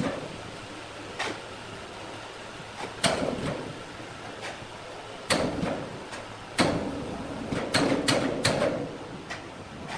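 Irregular knocks and clunks at a sawmill, as of timber and machine parts striking, with a quick run of them near the end, over a low steady machinery rumble.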